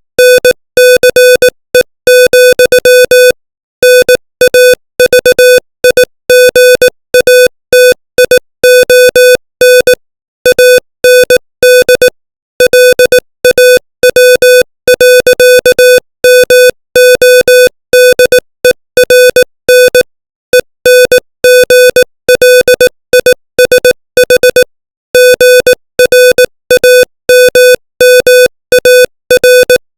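Morse code sent at 18 words per minute as a single steady beep keyed on and off in short dots and longer dashes, with brief pauses between letters and longer ones between words, spelling out English text.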